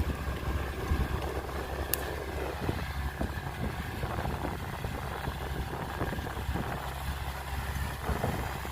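Heavy truck or earthmover engine running steadily at a low, even pitch, with a brief sharp click about two seconds in.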